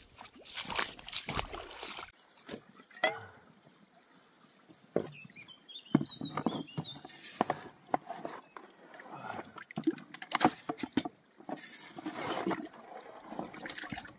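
A small shovel digging wet gravel in a shallow stream and tipping it into a plastic gold pan: irregular scraping, stones clattering and water splashing, with a few sharp knocks.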